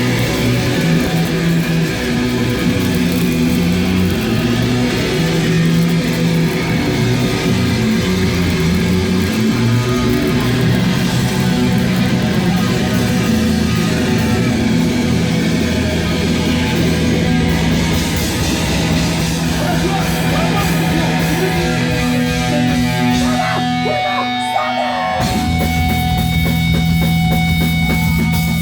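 Live rock band playing loud with distorted electric guitar, bass and drums. About 24 seconds in, the low end drops out for about a second, then the full band comes back in.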